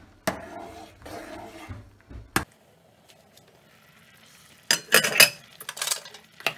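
Metal ladle stirring and scraping thick rice pudding in a stainless steel pot, with a sharp clink about two and a half seconds in. Near the end comes a loud clatter of metal as a metal pot lid is set down on the gas hob's grate.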